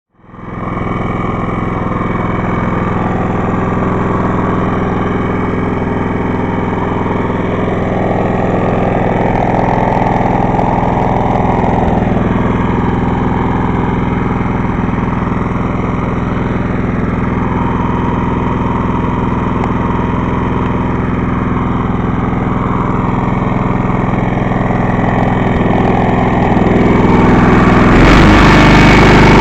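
Old Craftsman lawn mower's small gasoline engine running steadily, growing louder and fuller near the end.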